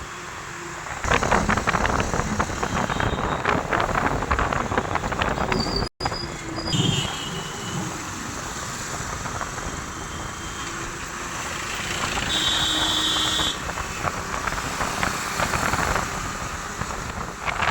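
Road traffic noise heard while travelling: a steady rumble, with a brief high tone about twelve and a half seconds in. The sound cuts out for an instant around six seconds.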